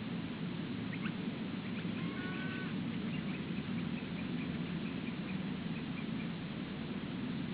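White-bellied sea eagles giving faint goose-like honking calls, a short run starting about a second in and dying away by the middle, over a steady low rumbling background noise.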